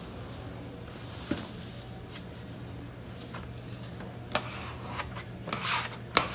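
Hands rubbing and brushing across stiff shiny vinyl wallcovering: a small click about a second in, then several short swishes, louder in the second half, over a steady low hum.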